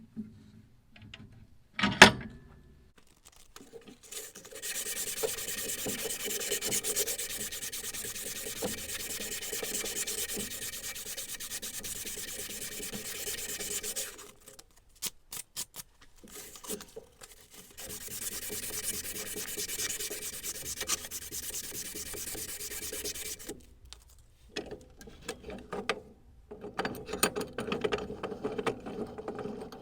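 Abrasive scraping on a steel hammer during rust removal, in long steady stretches with a pause of a few seconds between them, then rougher again near the end. A single sharp knock about two seconds in is the loudest sound.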